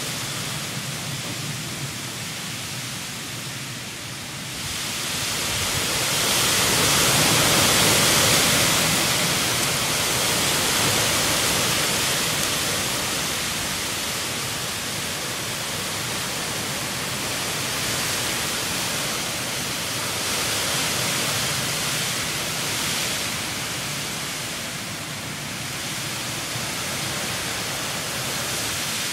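Heavy storm rain and wind, a steady rushing noise that swells to its loudest about six to ten seconds in, then eases and rises and falls more gently.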